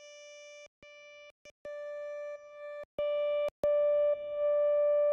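Serum software synthesizer playing a saw-wave pad note at one steady pitch, cut off and restarted several times with a click at each restart, getting louder in steps until it holds for the last second and a half.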